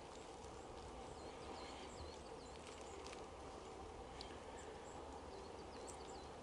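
Quiet forest ambience: a small bird singing a quick run of high, repeated chirping notes about a second in and again about five seconds in, over a faint steady hiss.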